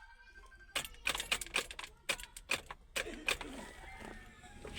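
Car keys jangling on their ring with irregular sharp clicks, as from an ignition key being worked. There is no starter click and no cranking: the Honda City's starter stays silent.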